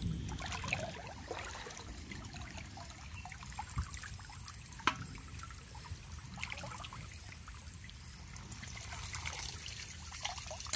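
Shallow water trickling and sloshing as a bamboo fish trap is worked loose and lifted out, with a couple of sharp knocks of bamboo near the middle and water streaming off the trap near the end.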